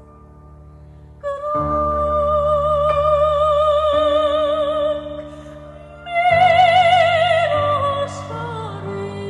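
Female soprano singing an Armenian folk song in a classical style, with wide vibrato, over a low sustained accompaniment. A long held note comes in about a second in. A higher, louder note enters past the middle and falls step by step toward the end.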